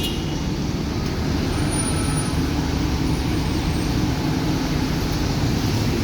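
Steady road-traffic noise, an even rumble of vehicles running on the road.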